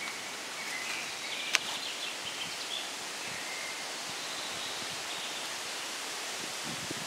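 Steady outdoor hiss with rustling leaves, faint high bird chirps, and one sharp click about one and a half seconds in.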